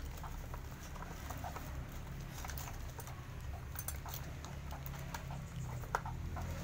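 Plastic aquarium filter parts being handled: scattered light clicks, taps and rustles as a blue corrugated hose is worked into the black filter box, with one sharper click near the end.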